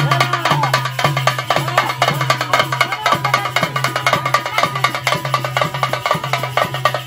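Folk dance music from a been (gourd snake-charmer pipe), its steady low drone under a wavering, reedy melody, played with quick, even strokes on a hand drum.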